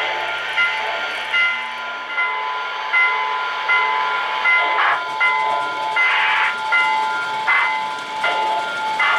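Bell ringing steadily, about one and a half strikes a second, from an O-gauge model train's electronic sound system. Short bursts of steam hiss come every second or so.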